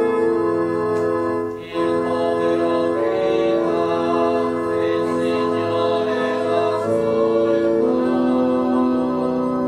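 Organ playing slow, sustained chords, each held for a second or two before moving to the next, with a short break about two seconds in.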